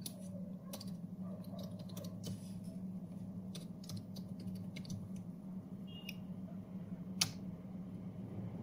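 Computer keyboard typing: scattered, irregular key clicks, with one louder keystroke about seven seconds in, over a steady low hum.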